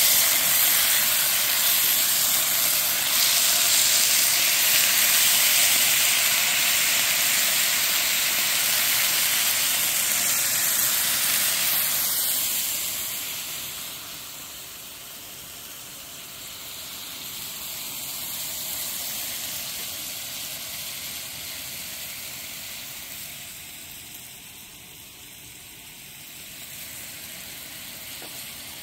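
Meat sizzling in a frying pan on a portable butane camp stove, a steady hiss. It is loudest for the first dozen seconds, then drops to a quieter sizzle.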